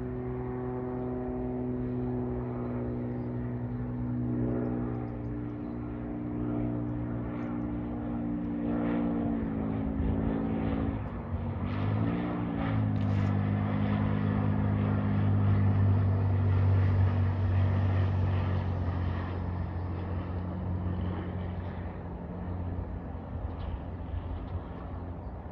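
Cirrus SR22 single-engine propeller planes, with six-cylinder piston engines, flying low overhead: a steady propeller drone. The pitch bends briefly about halfway through, then the drone grows louder and fades toward the end.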